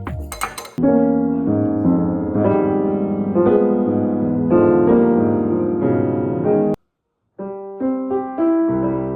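Piano playing chords and melody notes, cut off briefly about seven seconds in before more piano. The tail of an electronic beat ends in the first second.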